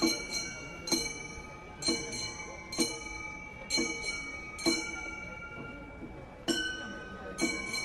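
Bell-like metallic chimes struck roughly once a second, each ringing on with several clear pitches.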